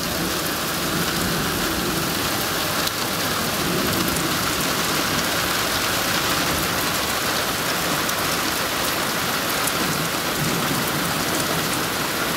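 Heavy downpour: rain falling steadily in an even hiss.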